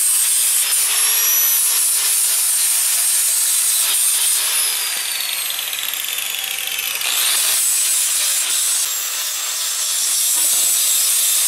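Power tool working wood: a loud, steady rasping noise with a thin high whine that slowly drifts in pitch, easing slightly around the middle.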